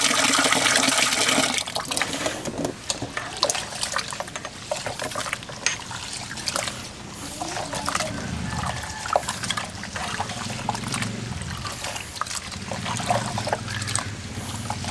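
Water rushing steadily for the first second and a half, then trickling and splashing with small scattered knocks against a cooking vessel.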